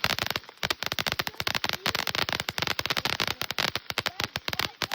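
Consumer fireworks crackling: a rapid, irregular run of sharp pops, many to the second.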